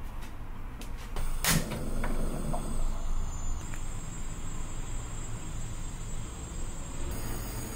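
Portable gas stove burner running steadily under a clay pot of rice and broth, with a few light clicks and one louder knock of a plastic ladle against the pot in the first couple of seconds.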